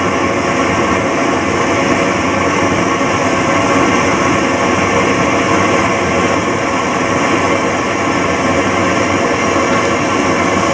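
Steady, loud mechanical roar with a hum of steady tones running through it, unchanging throughout.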